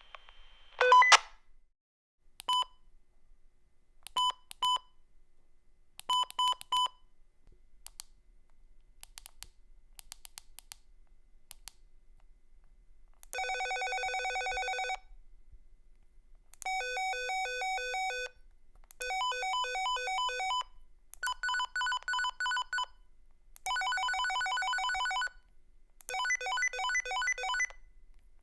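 Handheld walkie-talkie beeping and playing its call-alert tones: a short burst about a second in, then single, double and triple beeps and a few faint clicks, followed by six rapid warbling tone melodies of about a second and a half each.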